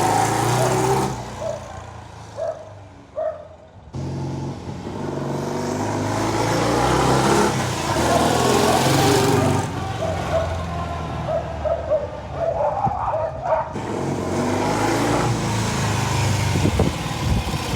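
Norton motorcycle engine running and revving up and down on a test ride, with wind rush. The sound breaks off abruptly about four seconds in and again near fourteen seconds, each time resuming at a new engine speed.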